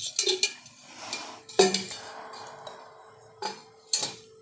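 Metal kitchen utensils clinking and knocking together, about six sharp clinks, the loudest about a second and a half in, which leaves a lingering ring.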